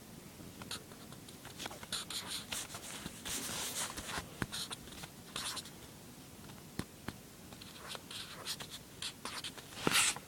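A drawing tool scratching across paper in quick, irregular strokes, with a louder stroke near the end.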